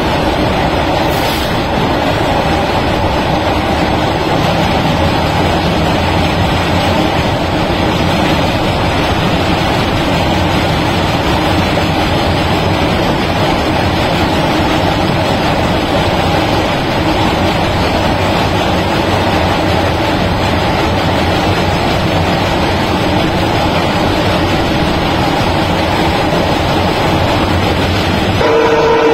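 Train running at speed across a steel truss bridge, heard from on board: a steady, loud rolling rumble of wheels on rail. The train's horn starts to sound near the end.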